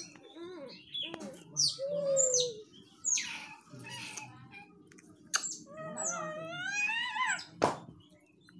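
Baby macaque crying: a string of high, squealing calls, the longest rising and then falling in pitch about six seconds in. A sharp knock near the end is the loudest sound.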